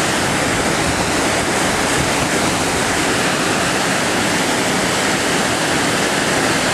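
Whitewater rapids of a slalom course channel rushing steadily, a dense, even sound of churning water with no breaks.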